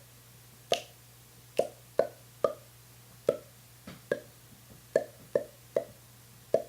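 A person making hollow popping sounds with the mouth, about a dozen sharp pops at an uneven pace of roughly two a second.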